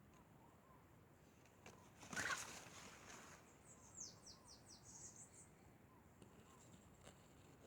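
Faint birdsong: runs of quick, high, descending chirps. About two seconds in there is a short, louder, harsh sound.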